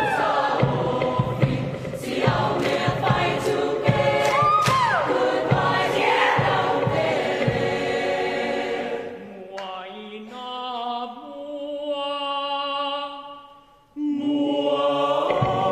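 Mixed-voice choir singing a traditional Samoan arrangement: loud rhythmic chanting with sharp percussive beats for about the first eight seconds, then slow, soft chords held in harmony. The chords fade almost to nothing, and a new full chord comes in loudly near the end.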